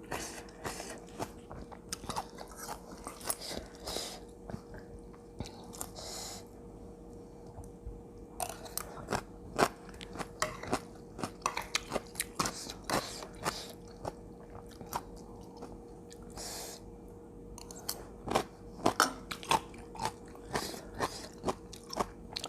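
A person chewing and crunching raw vegetables such as bean sprouts close to the microphone, in irregular crisp crunches. A faint steady hum runs underneath.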